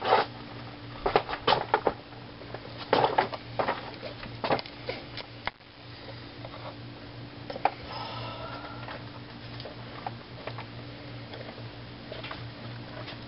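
Sharp plastic clicks and knocks from a quart bottle of motor oil and a funnel being handled at the engine's oil filler neck, several in the first five seconds, then quieter handling as the oil is poured in. A steady low hum runs underneath.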